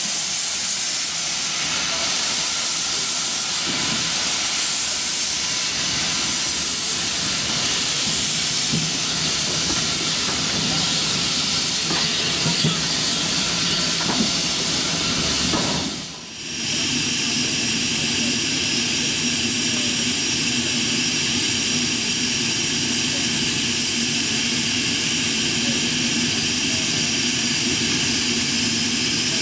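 Steam hissing steadily from Bagnall industrial tank locomotive No.401 'Vulcan'. It dips briefly about halfway through, then carries on as a steady hiss with a high steady tone running through it.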